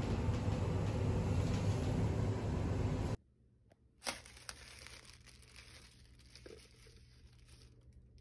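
Steady low rumble of an elevator car in motion, cut off suddenly about three seconds in. It is followed by faint crinkling of the cellophane wrap on a flower bouquet as hands handle it, with one sharper rustle about a second after the cut.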